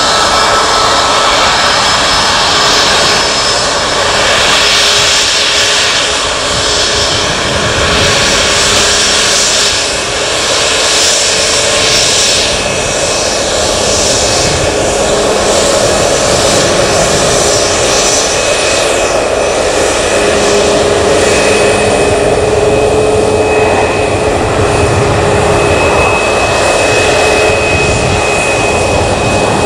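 Boeing 737 MAX 8's CFM LEAP-1B turbofan engines running at low taxi power: a steady jet whine over a continuous rush of engine noise, the whine tones growing stronger about halfway through.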